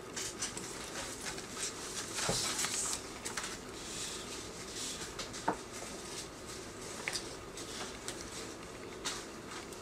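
A sheet of manga screentone being handled and slid over manuscript paper: irregular soft rustling of plastic film on paper, with a few small sharp ticks about two, five and seven seconds in.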